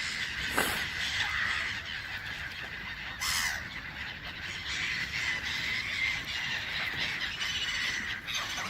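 A flock of waterfowl calling, many harsh overlapping calls and squawks running together without a break.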